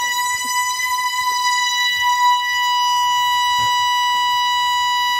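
Air horn blasting loud in one long, unbroken blast at a single steady high pitch.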